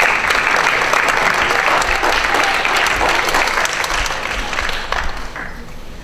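Audience applauding, starting suddenly and dying away after about five seconds.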